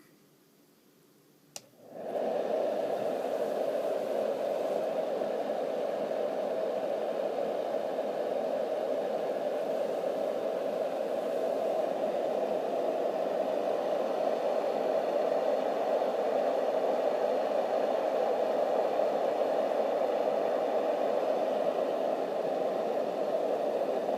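Marpac Sound Screen 980A white-noise machine switched on at its high setting: a click about a second and a half in, then its fan comes up to speed within about half a second and runs as a steady, even rush of air noise.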